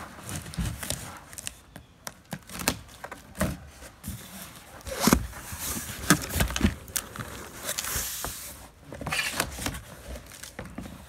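Cardboard shipping box being opened with a knife: tape being slit and cardboard flaps handled, a string of knocks and scrapes, with a longer rustle of packaging about eight seconds in.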